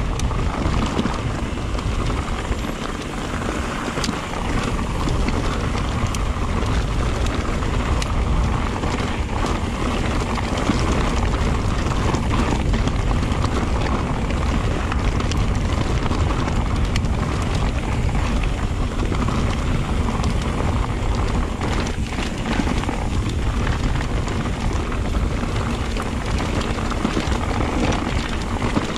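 Electric mountain bike descending a rough, loose-stone track: knobby tyres rumbling and crunching over gravel, with many small clicks of stones flicked up off the wheels, under steady wind rush on the microphone.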